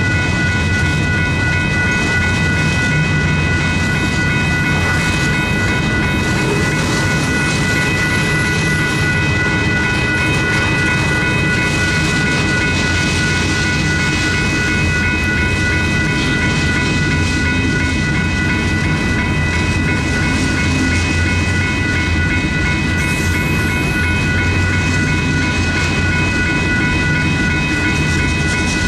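A freight train's cars rolling steadily through a grade crossing, wheels rumbling and clacking on the rails, while the crossing warning bell rings continuously.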